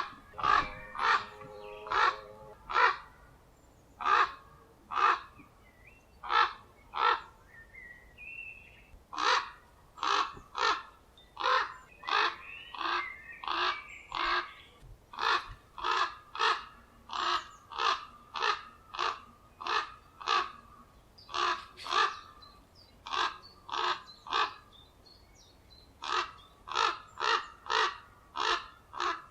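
Common ravens giving repeated harsh alarm calls, short croaks about one a second in runs with brief pauses, as they defend their nest in breeding season.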